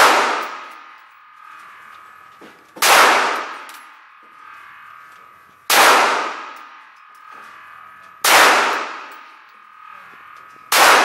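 Glock 17 9mm pistol fired slowly, single shots about every two and a half to three seconds, five in all. Each report rings on in the echo of an indoor range lane.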